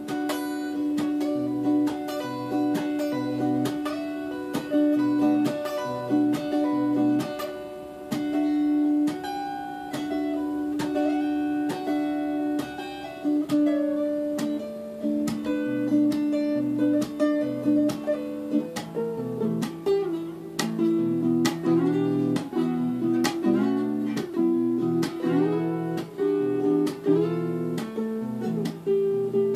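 Electric guitar played solo: a repeating figure of picked, ringing notes over low notes, turning about two-thirds of the way in to phrases with notes sliding and bending in pitch.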